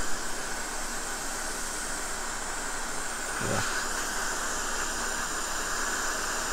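Hot air rework station blowing at maximum airflow and 500 °C, a steady hiss, as it heats a shorted MOSFET on the circuit board to melt its solder for removal.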